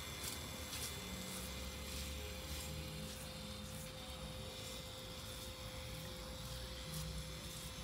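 Nutria roasting on an electric rotisserie spit over charcoal: faint irregular crackles from the coals and the oiled meat, over a steady hum.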